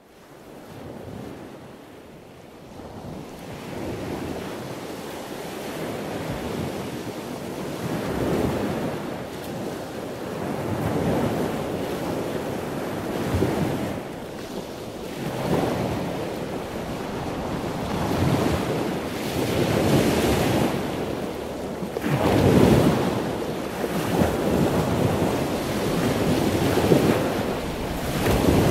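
Sea waves washing in, the surf swelling and falling back every two to three seconds. It fades up from silence at the start.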